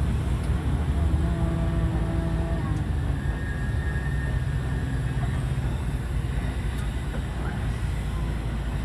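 Vehicle running with a steady low rumble and road noise.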